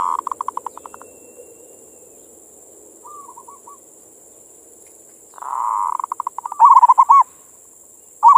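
Zebra doves (perkutut) cooing: a loud rolling coo breaking into a quick run of staccato notes at the start and again about five seconds in. Fainter short, curling coos come from another dove about three seconds in, and a third loud phrase starts just before the end.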